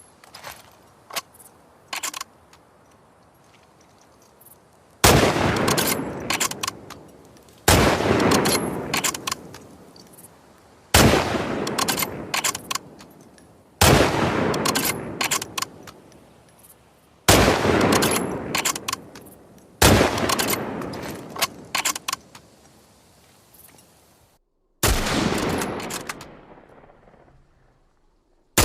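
Hunting rifle sound effect: a few light clicks in the first two seconds, then seven shots spaced about two and a half to five seconds apart, each trailing off in a long echo.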